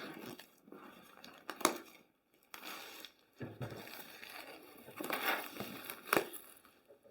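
Product packaging being opened by hand: irregular crinkling and rustling, with a sharp snap about one and a half seconds in and another near six seconds.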